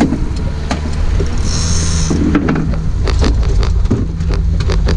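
A 90 hp outboard motor running steadily under way, with frequent sharp knocks and slaps from the hull meeting the waves.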